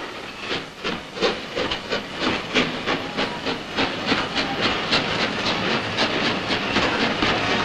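Express steam locomotive pulling a train out, its exhaust beats chuffing at about three to four a second over a steady hiss of steam.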